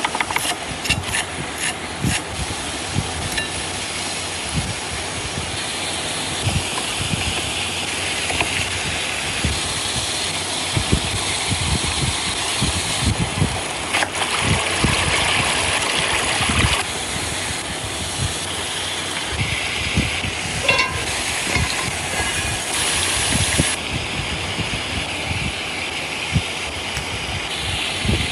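Outdoor cooking sounds: a steady hissing and crackling, with scattered short knocks and clicks. The texture changes abruptly several times across the stretch.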